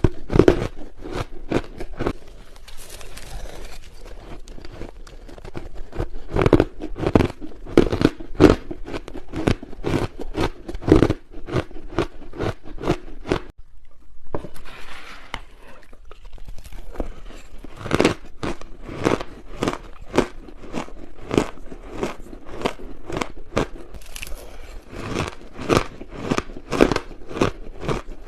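Ice being bitten and chewed close to the microphone: a rapid run of sharp crunches, with a short pause about halfway through.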